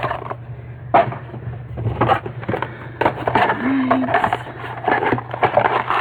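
Mystery Minis blind-box packaging being torn open and handled by hand: crinkling and scraping with irregular clicks and a sharp snap about a second in.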